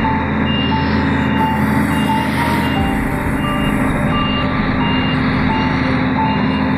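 Scania 113 truck's six-cylinder diesel engine running steadily as the truck rolls slowly, heard from inside the cab. Over it plays a tune of short, high beeping notes that change pitch.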